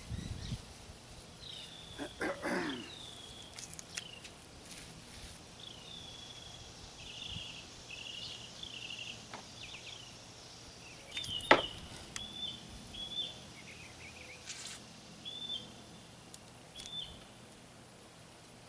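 A bird singing nearby: short repeated whistled notes and slurs, with a few buzzy trills partway through. A few knocks and scrapes from handwork at the bench come in between, and the sharpest knock, a little past halfway, is the loudest sound.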